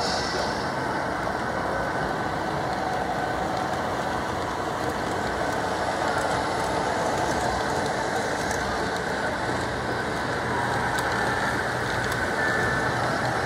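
Model trains running on a layout: a steady rolling rumble of locomotives and cars on the track, with a low hum joining in about two-thirds of the way through.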